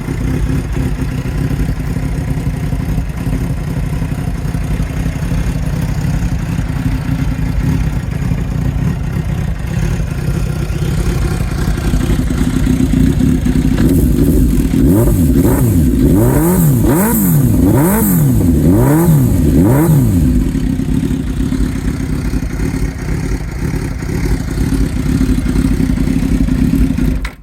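Suzuki GSX-R1000 K6's inline-four engine running through a de-cat straight-through exhaust with a carbon can. It idles steadily, is blipped about five times in quick succession midway, then settles back to idle.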